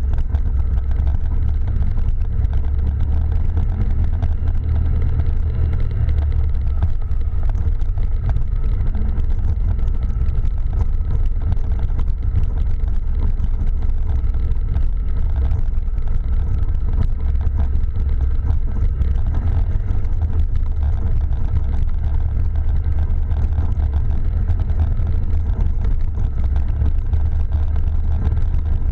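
ATV engine running steadily as it rides along a rough track, a constant low rumble with no marked revving.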